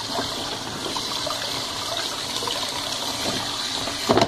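Tap water running steadily into a Colormaq Pioneer tub washer through its detergent dispenser, splashing as it flushes the washing powder into the filling tub. A short, loud knock comes near the end.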